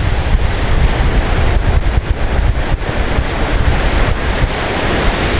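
Wind buffeting the microphone over the steady wash of surf breaking on an open beach, heaviest in the low rumble.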